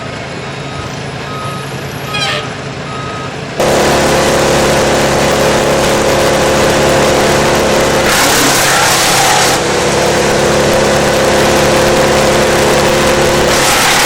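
Heavy diesel machinery running, with a reversing alarm beeping four times. About three and a half seconds in, a wood chipper starts working and the sound becomes much louder and steady, with a brief harsher hiss of chipping partway through.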